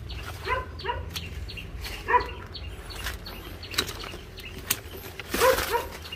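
A dog barking several short barks, in twos, with a few sharp clicks of hand pruning shears snipping branches.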